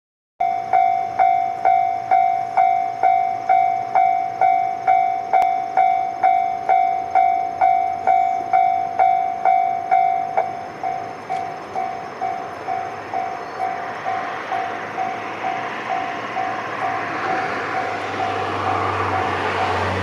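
Japanese level-crossing warning bell ringing 'kan-kan', about two strikes a second, turning quieter about ten seconds in as the barriers come down. Over the last few seconds the rushing rumble of an approaching train grows louder.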